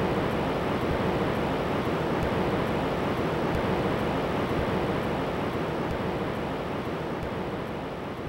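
Ocean waves rushing and surging in a steady wash of sound that eases slightly toward the end.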